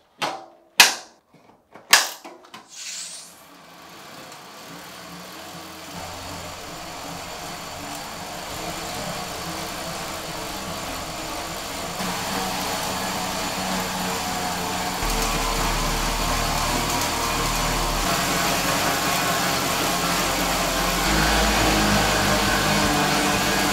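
Bicycle riding on Duter classic rollers: three sharp clicks as the rider gets on, then the steady whirring hum of tyres spinning on the roller drums, growing louder in steps as the target power ramps up toward 180 W.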